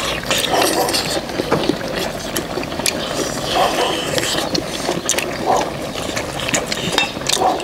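People eating pork back-bone stew: wet slurping, chewing and sucking meat off the bones, with repeated light clicks of metal tongs and chopsticks against steel bowls and the pan.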